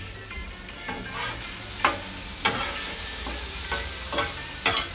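Chicken and peppers sizzling on a Blackstone steel flat-top griddle while a metal spatula stirs and scrapes them, with a few sharp clacks of the spatula on the steel plate from about two seconds in.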